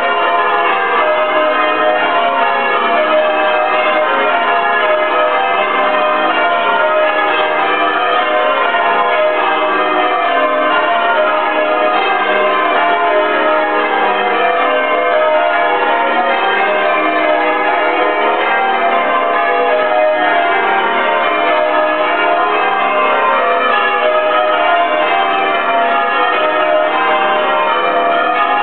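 A ring of eight church bells change ringing Spliced Surprise Major: an unbroken stream of strokes in shifting order, heard from outside the tower. The ring has a 21 cwt tenor in E flat and unusually heavy Purdue trebles.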